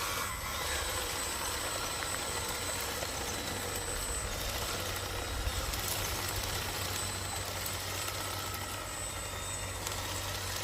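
Radio-controlled construction trucks running, a steady low engine-like rumble with a faint high whine over it.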